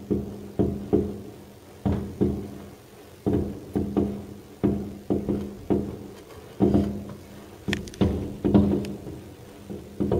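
Aerial firework shells bursting in an irregular run of sharp bangs, often two or three in quick succession, each fading out over about a second, with a lull about three seconds in and a brief crackle near the end.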